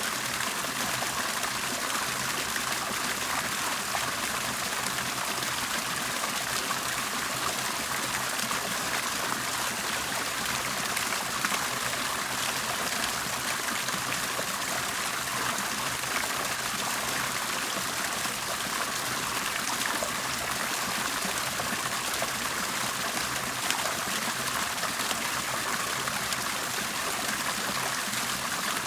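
Water bubbling and splashing steadily, an even, unbroken gurgle with no pauses.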